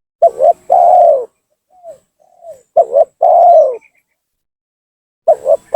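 Spotted dove (tekukur) cooing: three times a phrase of two short notes followed by one long, slightly falling coo, with two soft, quieter notes between the first two phrases. It is a lure call ('pancingan') meant to provoke rival doves into coming down.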